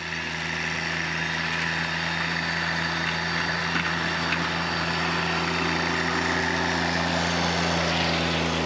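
John Deere 318 garden tractor's air-cooled two-cylinder engine running at a steady speed while it pushes snow with its front blade. It grows slightly louder as the tractor comes closer.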